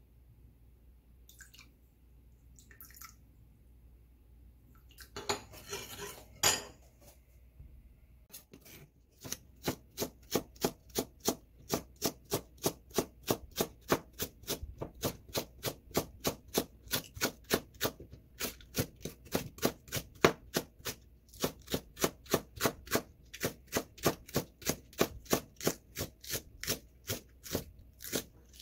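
A knife chopping a green onion on a plastic cutting board: steady, even strokes about two to three a second, with a couple of short pauses, starting about a third of the way in. Before that, a spoon stirring sauce in a small bowl, with a brief scrape and a sharp clink.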